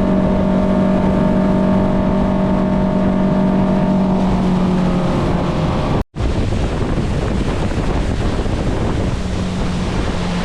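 A motorboat's engine runs steadily with wind and water noise. The sound cuts out for an instant about six seconds in; after that the wind and water rush is loudest, and the engine tone comes back faintly near the end.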